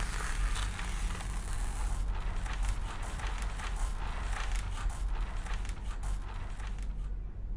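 Pencil or charcoal scratching on paper: a dense, crackling scratch that stops abruptly about seven seconds in, over a steady low hum.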